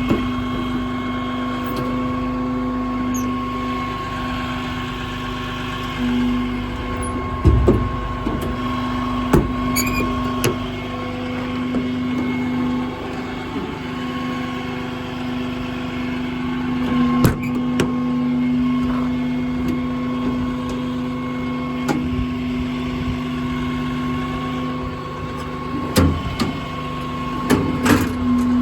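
Ram 5500's 6.7 Cummins diesel idling: a steady hum of constant pitch, with a few sharp knocks and clicks, the loudest about a third of the way in and near the end.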